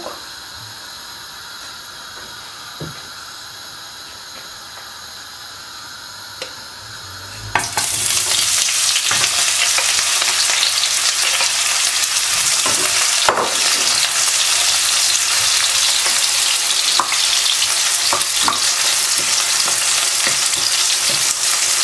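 Chopped onion tipped into hot sunflower oil in a frying pan about a third of the way in, setting off a loud, steady sizzle that carries on while a wooden spatula stirs it, with a few knocks of the spatula against the pan.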